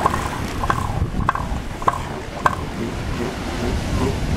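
Bull northern elephant seal giving its rhythmic clap-threat call to warn off rival males: about five sharp, evenly spaced pulses, a little under two a second, over a steady rumble of wind and surf.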